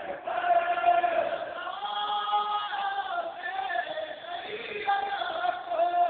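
Men's voices chanting a noha, a Shia lament for Imam Hussain, in long drawn-out sung lines.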